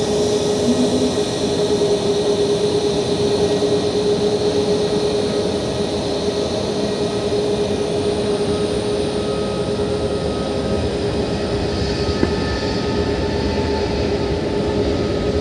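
Jet engines of a taxiing Boeing 737 MAX running steadily at idle: an even drone with one constant tone held throughout.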